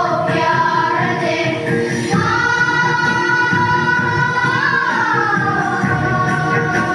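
A children's choir singing together. One long note is held through the middle, and then the melody falls away.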